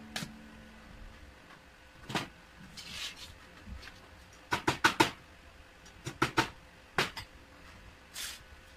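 Sharp metal knocks and taps on a steel workbench as metal parts are handled at the vise: a single knock about two seconds in, a quick run of four about halfway through, then a few more spaced out toward the end.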